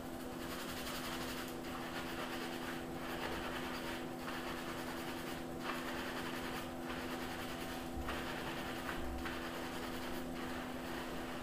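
Hands scrubbing a soapy lather through a wet beard: a wet rubbing hiss in strokes a little over a second apart. A steady low hum runs underneath.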